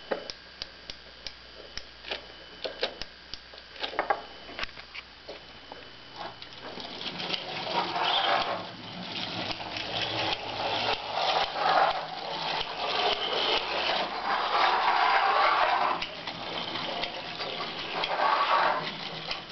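Scattered sharp clicks for about the first six seconds. Then the clockwork spring motor of a Gunthermann tinplate wind-up motorcycle toy whirrs as the toy runs, swelling and fading in loudness.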